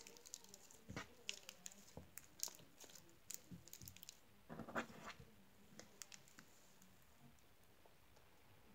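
Slime being squeezed and stretched by hand: faint, scattered wet clicks and squishes, with a louder squelch about five seconds in.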